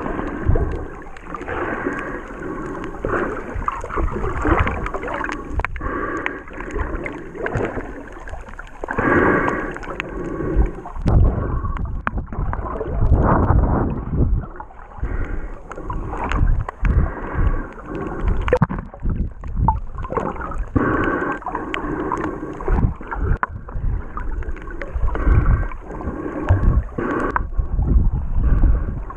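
Muffled underwater sound of shallow water moving over rocks: irregular sloshing and surging swells, each about a second long, with many low thumps and knocks.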